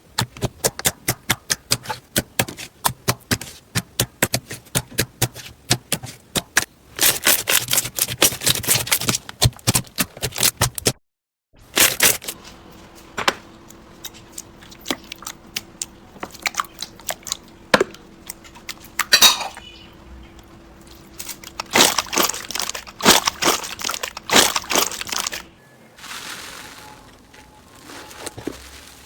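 Slime being squeezed and pressed by hand, giving rapid trains of sharp crackles and pops, with a short break about eleven seconds in where the clip changes.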